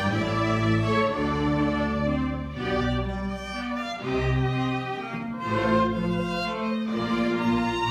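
String orchestra playing live: violins carrying held notes that change pitch every half second to a second, over a low cello and bass line.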